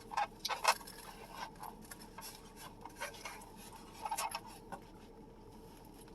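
Close-miked chewing and mouth sounds of someone eating: a run of short wet clicks and smacks, thickest in the first second and again about four seconds in, thinning out towards the end.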